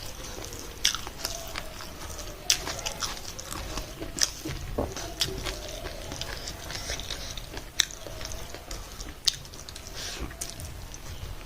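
Close-miked mukbang eating sounds: a person chewing a mouthful of food, with about five sharp wet clicks and crunches spread through the chewing.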